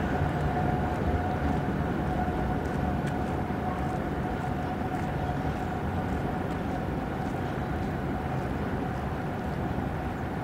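Train running steadily on the line: a low rumble with a constant mid-pitched whine and faint clicks, easing off slightly.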